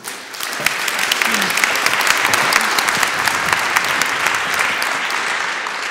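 Audience applauding: many hands clapping, swelling within the first second, holding steady, then starting to fade near the end.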